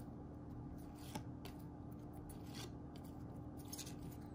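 Glossy trading cards sliding against one another as a stack is thumbed through by hand: a few faint, brief swishes at uneven intervals.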